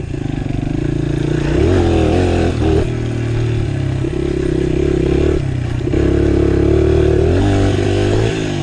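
1999 Honda XR100's small single-cylinder four-stroke engine running while ridden, the throttle opening and closing so the pitch rises and falls several times, with steady stretches in between and a brief drop about five and a half seconds in.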